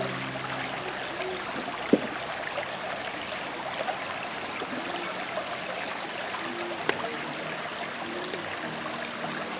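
Shallow creek water running steadily over gravel and stones. There is a sharp click about two seconds in and another about seven seconds in.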